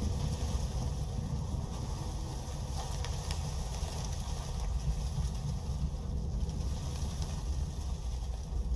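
Strong storm wind blowing as a steady low rumble.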